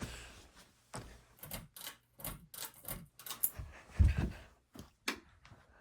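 A string of irregular sharp clicks and light knocks, with one louder dull thump about four seconds in.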